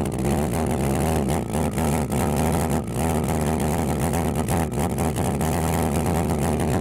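Homemade valveless pulse jet built from scrap cans running steadily, its tube red hot: a loud, unbroken drone with a few sharp crackles.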